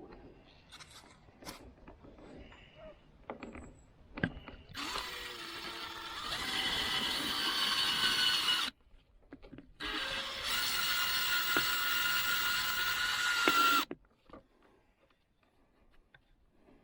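A power drill runs twice, each time for about four seconds with a steady whine, after a few small clicks and knocks of handling.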